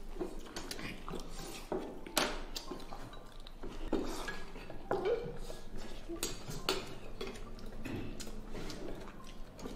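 Chopsticks clicking and scraping against porcelain rice bowls and serving dishes during a family meal, in scattered, irregular clinks.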